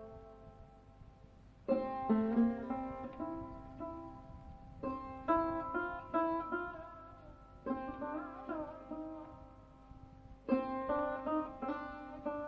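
Background music played on a plucked string instrument, in short phrases of picked notes that ring and fade, with a bent note partway through.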